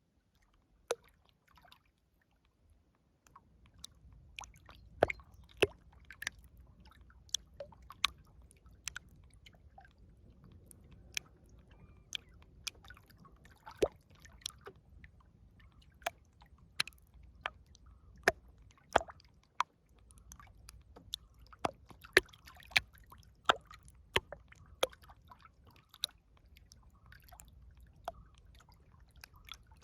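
River water lapping and dripping at the bank: irregular sharp plops and small splashes, over a faint low rumble that comes in a few seconds in.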